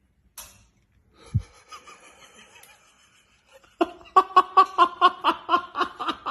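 A person laughing hard in quick, even bursts of about five a second, starting about four seconds in. Before it, a short hiss and a dull thump.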